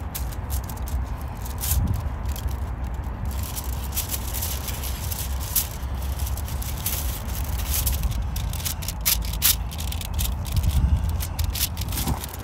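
Aluminium foil crinkling and crackling as gloved hands press ground-beef patties on it and then lift the sheet, with many sharp crackles over a steady low rumble.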